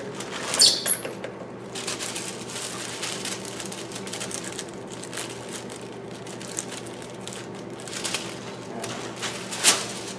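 A sheet of paper pattern rustling and crinkling as it is handled, with a pencil scratching along it; the loudest rustles come about a second in and again near the end, over a faint steady hum.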